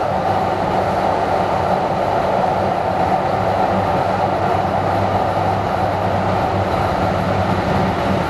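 DART light rail train running at speed, heard from inside the passenger car as a steady, unbroken running noise.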